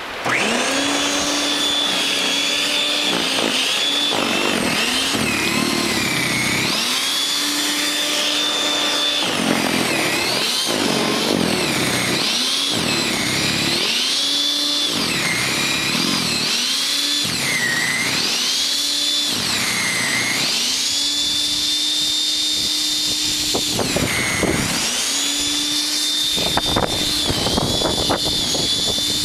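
WEN 5662 13.5-amp electric snow thrower switching on and running with a steady motor whine, its pitch dipping and recovering again and again as the auger bogs down in the snow.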